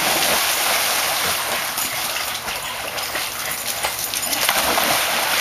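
Pool water splashing as a dog lands in it at the start, then churning and sloshing as the dog swims, gradually settling.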